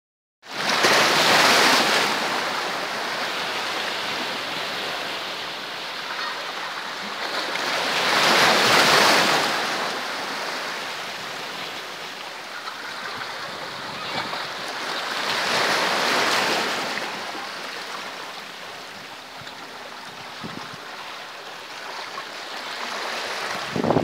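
Sea waves surging in and washing over shoreline boulders, a steady wash with three louder surges several seconds apart.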